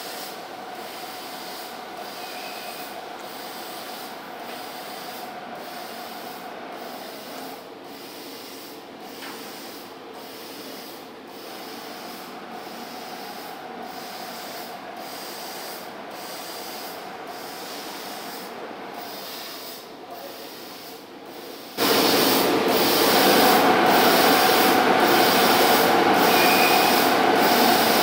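Laser cutting machine at work on an aluminium cutting job: a steady machine hiss with a faint held tone, which jumps suddenly much louder about 22 seconds in and stays loud.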